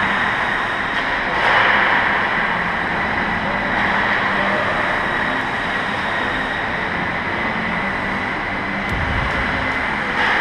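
Ice rink ambience during hockey play: a steady hiss of skates on ice that swells once about a second and a half in, with a few sharp clicks and a low thump near the end.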